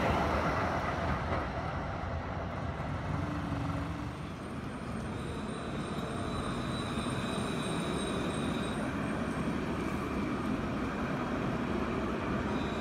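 Electric trams passing close by: a steady rolling rumble from the wheels on the rails, loudest at first and easing off over the first few seconds. A faint high electric whine comes in part way through and again near the end.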